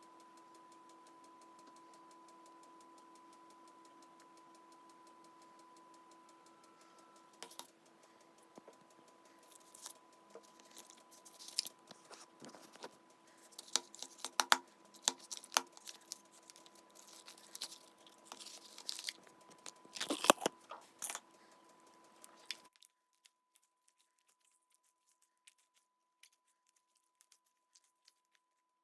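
Clear slime being handled, squeezed and stretched, making irregular sticky crackles, clicks and pops, loudest about halfway through and again near the end before stopping suddenly.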